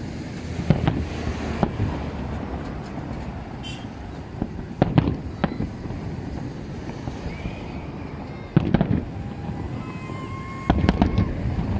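Fireworks exploding overhead: sharp bangs at irregular intervals, some in quick clusters of two or three, over a continuous low rumble.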